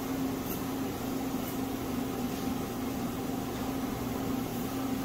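Steady hum of operating-room equipment and ventilation: an even airy hiss with a constant low tone.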